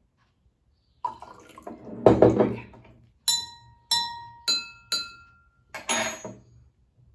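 Water poured from a glass pitcher into a drinking glass, then a spoon tapping two water-filled drinking glasses, four ringing strikes: two at a lower pitch, then two at a higher pitch. The water level in each glass tunes its pitch.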